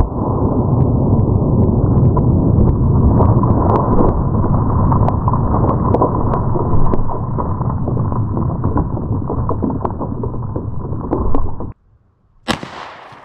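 A 9mm pistol shot into water-filled plastic jugs, played back slowed down: a long, deep, dull rumble full of crackling splashes that cuts off suddenly about twelve seconds in. After a brief gap comes a single sharp pistol shot at normal speed, fading out.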